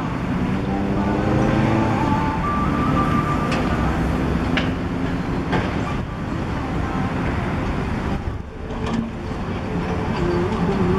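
Diesel engines of a Komatsu PC120 hydraulic excavator and a cement mixer truck running. The engine note rises and falls as the excavator works its boom and bucket, with a few sharp knocks in the middle.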